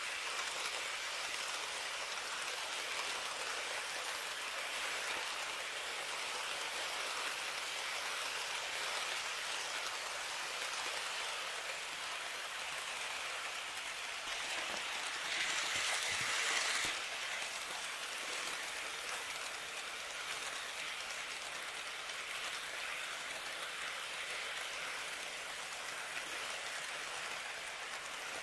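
KATO N gauge model electric trains (205 series and 103 series) running along the track: a steady hiss and rattle of wheels on rail and motor running. It gets louder for about two seconds midway as a train passes close.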